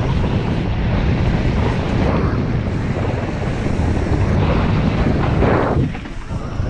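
Wind rushing over the microphone of a camera carried fast down a dirt singletrack trail, with a low rumble of the ride underneath. It swells a little over five seconds in, then briefly drops.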